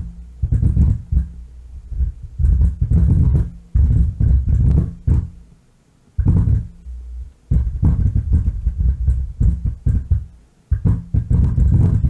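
Miller & Kreisel MX-90 powered subwoofer putting out a low rumble with crackling in irregular bursts that cut in and out, with no input signal. The noise comes from a defective bass level pot.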